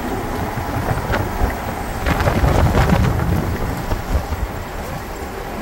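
Wind buffeting the microphone over the road noise of a moving motorhome: a rough, low rumble that swells about two seconds in and eases off toward the end.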